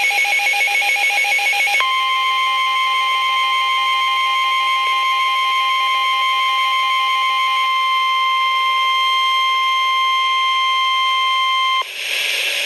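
NOAA Weather Radio Emergency Alert System alert: the tail of a warbling digital data burst, then the steady single-pitched 1050 Hz warning alarm tone held for about ten seconds. The tone cuts off abruptly about a second before the end, leaving radio hiss. The alert signals that a severe thunderstorm warning is being broadcast.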